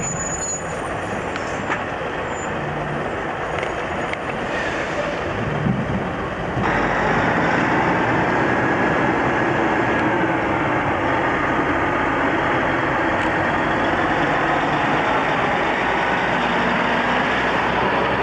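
Loaded logging trucks driving by on a highway: heavy diesel engines running and tyre noise on the road. The sound steps up suddenly in loudness about seven seconds in and stays loud as a truck and trailer pass close.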